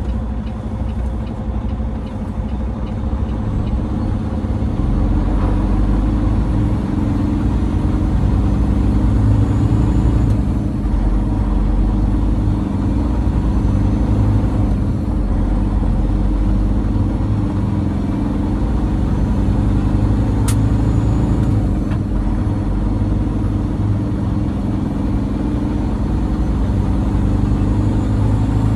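Peterbilt 389 semi truck's diesel engine running as the truck pulls out through a turn, growing louder a few seconds in as it takes on power.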